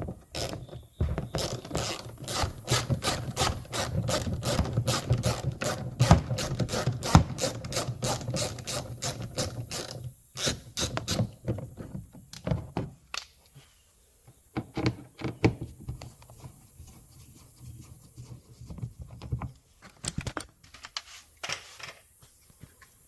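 Hand ratchet clicking in a fast, even run of about four to five clicks a second, backing out a fastener that holds the door panel; the clicking stops about halfway, followed by scattered quieter clicks and knocks.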